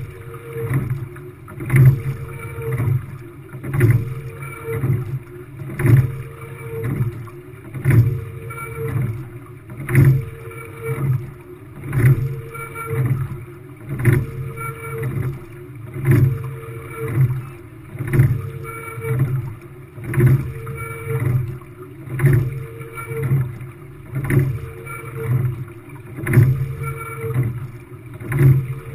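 Quad sculling shell being rowed at a steady rate of about 30 strokes a minute. A sharp knock of oars and oarlocks comes about every two seconds, each followed by a short steady hum, over the constant rush of water along the hull.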